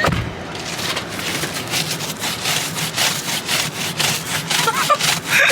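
Rhythmic scraping strokes, about three a second, of snow and ice being scraped and brushed off a car's windshield.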